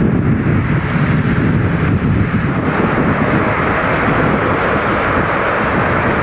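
Strong gusting wind buffeting the microphone in a heavy, uneven rumble, with a rushing noise that builds from about two and a half seconds in.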